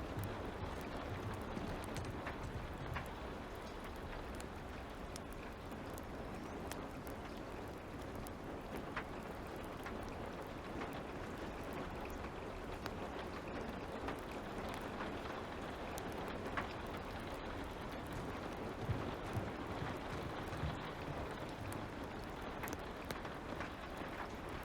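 Steady light rain, with scattered small pops and crackles from a wood fire.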